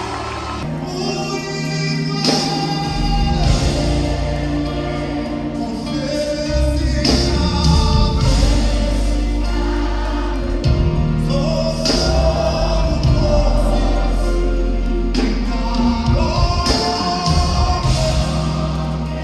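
Live gospel worship music: a choir and lead voices singing over a band with steady bass and drums.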